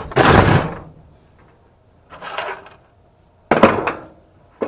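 Handling noise from a microwave oven being taken apart for scrap: a scraping rustle, then a sharp knock about three and a half seconds in, and a smaller knock near the end.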